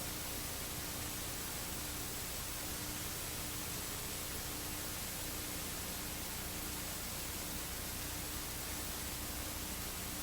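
Steady hiss of a recording's background noise, with a faint steady hum under it and nothing else.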